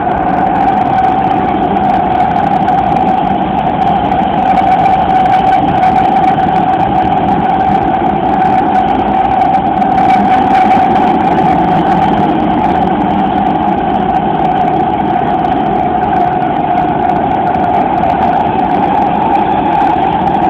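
Interior noise of a Siemens Inspiro metro car: a steady whine over a low rumble.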